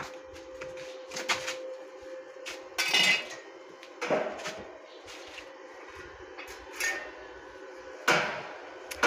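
Intermittent sharp metallic knocks and clatter, about six strikes spread a second or two apart, each with a short ring.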